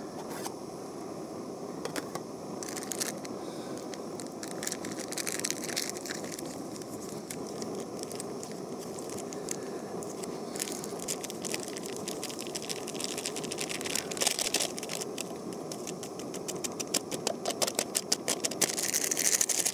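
Backpacking gas stove burning steadily under a pot of water, a continuous hiss, with scattered clicks and rattles of handling that grow busier near the end as the water comes toward the boil.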